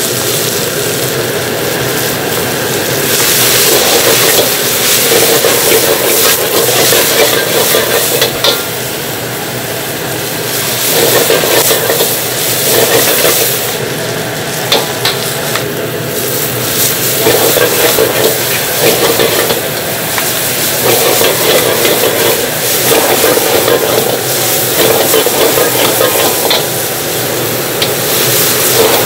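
Shredded vegetables sizzling in a hot wok as a ladle stirs and tosses them, with occasional sharp clicks of the ladle against the metal.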